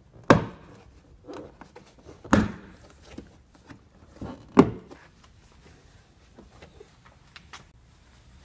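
Plastic door trim panel on a Nissan Murano Z51 front door being tugged by hand at its edges: three sharp knocks about two seconds apart as the panel jerks against its retaining clips, followed by faint handling noise. The panel is still held by a hidden fastener.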